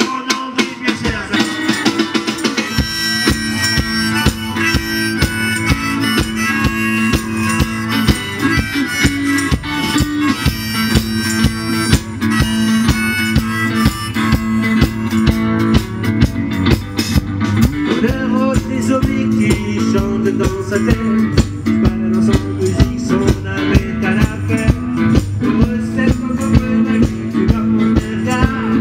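Blues music: harmonica over guitars, with a steady drum beat coming in about two and a half seconds in.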